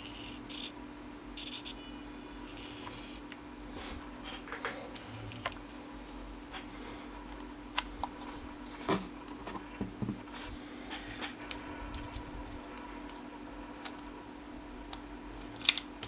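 Tiny electric gear motors of a 1/87-scale remote-controlled model truck whirring in short high-pitched spurts in the first few seconds, followed by scattered small plastic clicks and taps, with a sharper click near the end as the model is handled.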